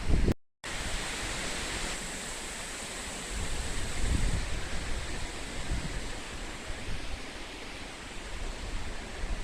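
Strong, gusty storm wind rushing through trees, with wind buffeting the microphone in low, uneven gusts. The sound cuts out completely for a moment about half a second in.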